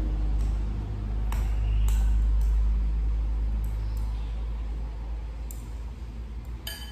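Wooden chopsticks clinking lightly against a bowl, a few separate taps about a second or two apart, over a steady low rumble.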